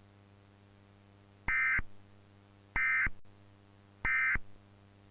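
Emergency Alert System end-of-message signal: three short bursts of buzzy digital data tone about a second apart. These mark the end of the alert. A faint steady hum runs underneath.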